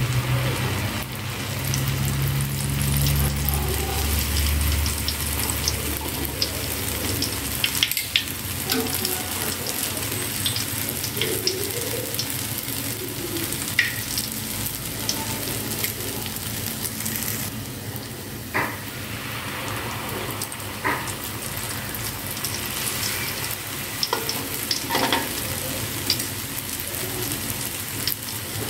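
Rose cookie batter deep-frying in hot oil in a wok: a steady sizzle, with scattered metal clicks as the cookies are turned and lifted out with tongs. A low hum sounds under the sizzle for the first few seconds, then fades.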